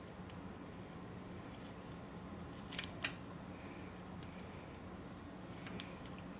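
A few light, sharp clicks and taps of small plastic computer parts and cables being handled, over a faint steady hum.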